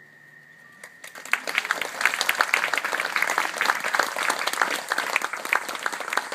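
The last held note of the music fades away, and about a second in an audience breaks into applause, many hands clapping densely for the rest of the time.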